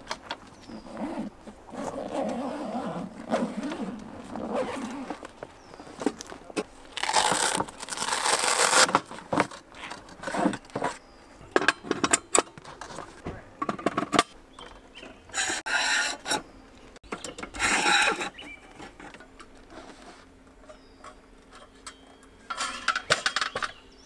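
A portable propane fire pit being unpacked and assembled by hand: its padded carry bag handled, tube legs pushed into the metal sockets of the pan, and metal parts rubbing, scraping and knocking. It comes as a series of separate handling noises, the loudest about a third of the way in and again past the middle.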